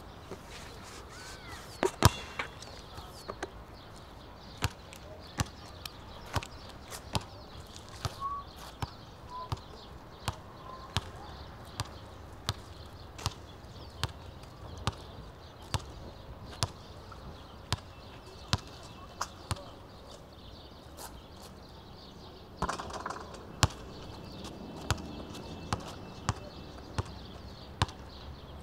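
A basketball being dribbled on a hard outdoor court: a steady series of sharp bounces, about one every three-quarters of a second, with a few louder knocks about two seconds in.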